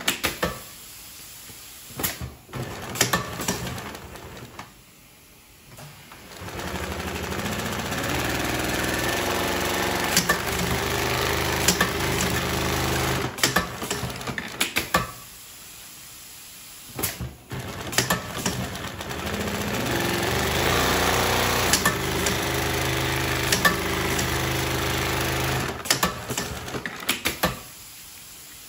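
Pfaff long-arm triple-feed industrial sewing machine with a roller puller stitching heavy webbing, running steadily in two long runs of about eight seconds each. Between the runs and at the start and end, the machine stops and there are sharp clicks and knocks.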